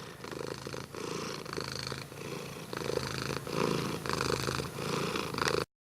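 Domestic cat purring steadily, the purr swelling and easing with each breath in and out. It cuts off suddenly near the end.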